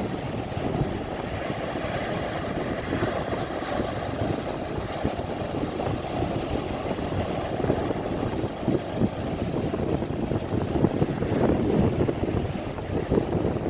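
Surf on a choppy sea: waves breaking and washing in, with wind buffeting the microphone as a low, uneven rumble.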